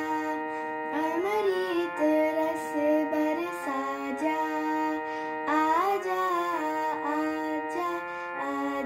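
A girl singing a Hindi film song, accompanying herself with held notes on a keyboard. Her voice slides up into several notes over steady keyboard tones that change pitch every second or so.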